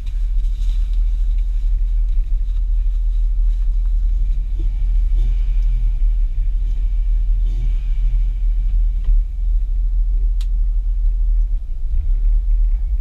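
Audi S4 engine idling, a steady low rumble heard from inside the cabin. Faint voices show up in the middle, and there is a single sharp click about ten seconds in.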